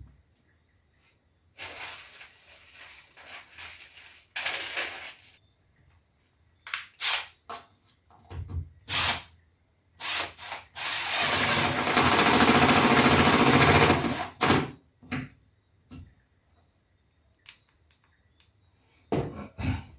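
Tool-handling sounds of electrical installation work: scattered clicks, knocks and scrapes, with a power tool running steadily for about four seconds in the middle.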